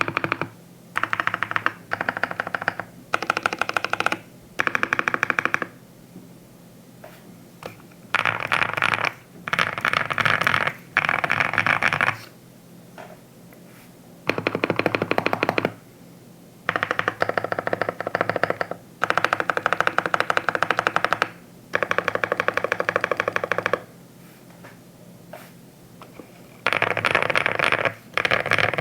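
Typing on a QK65 R2 mechanical keyboard with lubed Boba U4T tactile switches in an FR4 plate and HammerWorks CRP keycaps: quick runs of keystrokes lasting a second or two, broken by short pauses.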